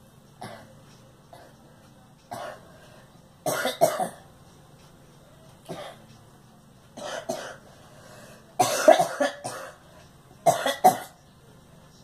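A woman coughing in repeated bouts: a few single light coughs at first, then clusters of two to four harsh coughs, the loudest bout about three-quarters of the way through.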